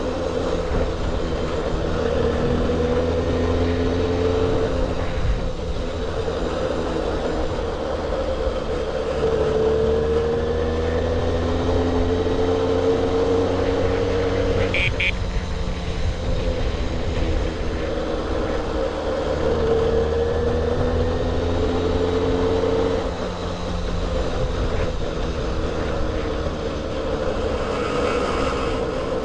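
A 1978 Puch Sport MK II moped's 50cc two-stroke single-cylinder engine running under way. Its pitch climbs slowly three times as it pulls and drops back in between.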